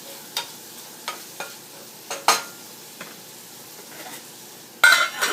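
A cooking utensil scraping and knocking against a frying pan as sliced bitter gourd is stirred in hot oil, with a steady faint sizzle of frying underneath. The strokes come singly about a second apart, then a quicker, louder run of scrapes near the end.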